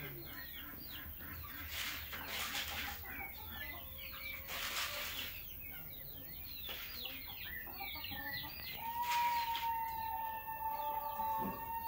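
Chickens clucking in short scattered calls, then a rooster crowing in one long, steady call over the last few seconds.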